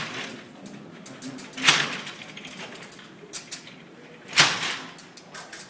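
Charles Babbage's Difference Engine No. 2 running at full speed, a clanking mechanical machine cycling with a loud clatter of its moving parts about every two and a half seconds and a softer rattle between.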